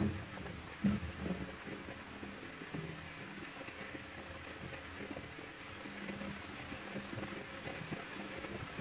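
Pencil lead scratching on paper in light sketching strokes.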